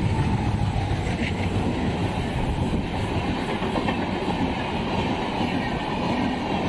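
WDM3A diesel locomotive passing close by, the deep hum of its ALCO 16-cylinder engine fading about a second in. LHB passenger coaches then roll past steadily, their wheels rumbling on the rails.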